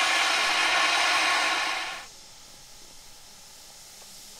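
Narrow-gauge steam locomotive letting off steam, a loud steady hiss that dies away quickly about two seconds in, leaving only a faint hiss.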